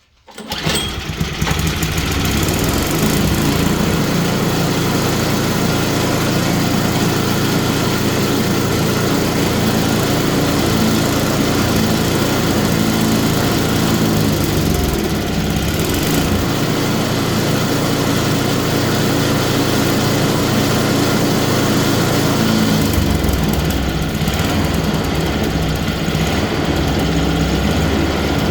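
MTD snowblower's small single-cylinder engine running steadily. It comes in suddenly right at the start, and its low note shifts about 23 seconds in.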